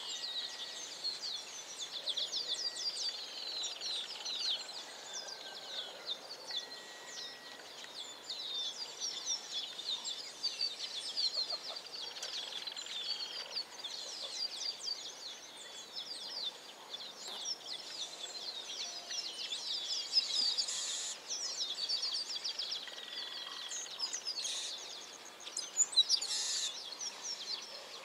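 A chorus of many small birds chirping, quick high chirps overlapping without a break, with a few louder calls about 20 and 26 seconds in.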